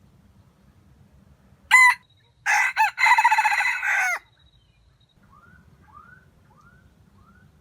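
A jungle-chicken rooster crowing: a short opening note, then a loud crow of about a second and a half that drops in pitch at the end. Afterward comes a string of faint short chirps, a bit under one a second.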